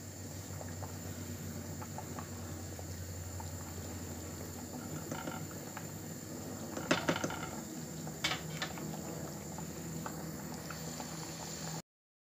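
Pot of borlotti beans in tomato sauce bubbling at a simmer, stirred with a wooden spoon, with a few louder knocks of the spoon against the steel pot about seven and eight seconds in.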